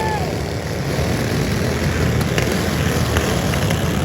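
Several riding lawnmower engines running hard together, a steady loud mix of engine noise with no single clear pitch.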